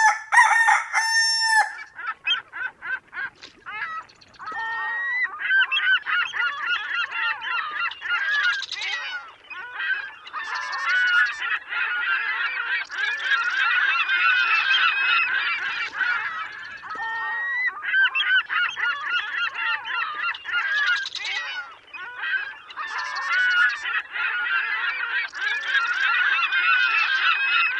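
A flock of birds calling, many calls overlapping, with a longer pitched call at the start.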